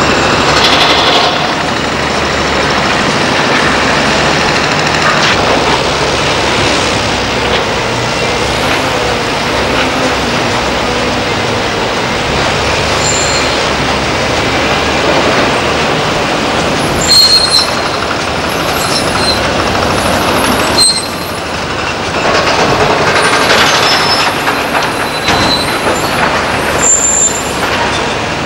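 Diesel engines of heavy three-axle tipper trucks and construction machinery running steadily. A few short high squeaks come in the second half, twice close together and once near the end.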